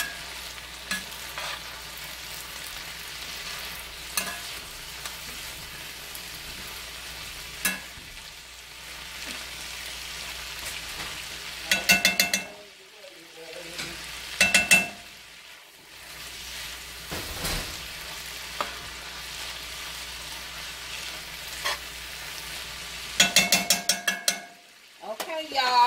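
Shredded cabbage frying with a steady sizzle in a cast iron skillet, stirred and turned with a metal spatula. The spatula scrapes and clanks against the pan in a few short loud bursts, in the middle and near the end.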